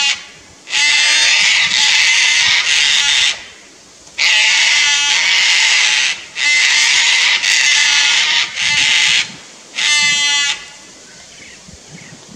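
Sulphur-crested cockatoos giving loud, harsh screeches in long bursts, with a quieter stretch over the last two seconds: alarm and mobbing calls at a lace monitor in a tree beside their nest tree.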